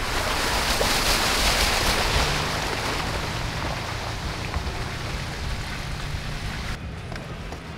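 Toyota FJ Cruiser driving on a wet, muddy trail: a hiss of its mud-terrain tyres through wet mud and puddles, mixed with wind on the exterior mic. The hiss is strongest for the first couple of seconds and then eases off, with the engine's low drone underneath.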